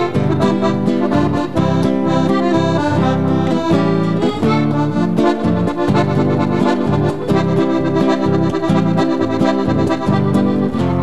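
Piano accordion playing a lively instrumental introduction, with an acoustic guitar accompanying.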